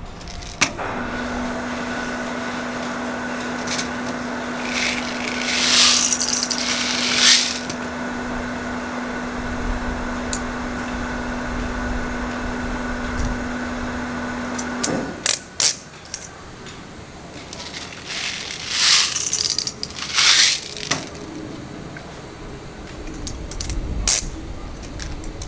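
Handling noises from a WE SCAR gas-blowback airsoft rifle and its magazine: a few sharp clicks and two pairs of short hissing bursts. Under them runs a steady hum that cuts off about 15 seconds in.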